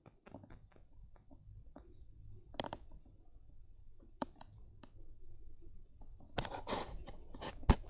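Handling noise from plush toys being moved against a crib rail and from the phone in hand: scattered light clicks and rubbing, a denser flurry of rustling about six seconds in, and one sharp knock near the end.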